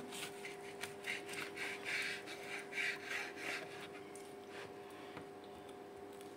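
A kitchen utensil scraping, a run of short strokes about two a second for a few seconds before it stops, over a steady low hum.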